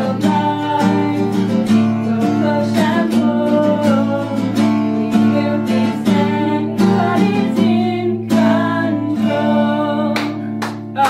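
Two women singing a song to a strummed acoustic guitar, with a few hard strums near the end.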